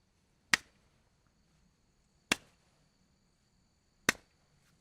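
Three sharp single clicks, evenly spaced about two seconds apart, over near silence with a faint steady high whine.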